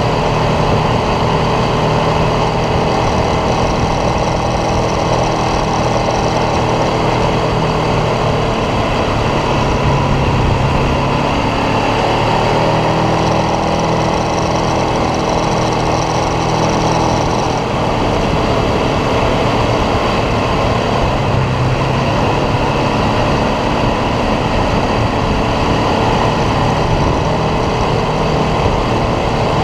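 ATV engine running under way, its note shifting up and down every few seconds as the throttle and speed change, over a constant low rumble.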